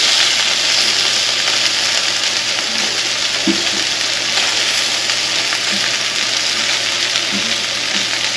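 Chopped sausage frying in butter in a pan: a steady sizzle.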